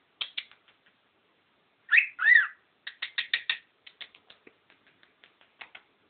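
A cockatiel making a funny run of short, clicky chirps. Two louder arched whistled notes come about two seconds in, then a quick string of ticks that slows and fades.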